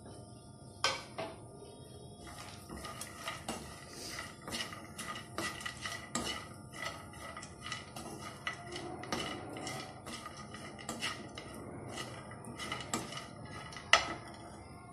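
A metal spoon clinking and scraping against a small non-stick frying pan as roasting nuts and dry fruit are stirred, giving a run of irregular clicks, with a sharper knock about a second in and the loudest one near the end.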